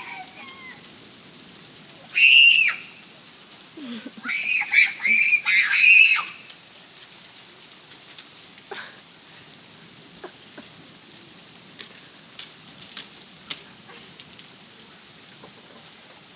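Steady rain falling, with a child's high-pitched squeal about two seconds in and a quick run of several more squeals from about four to six seconds in.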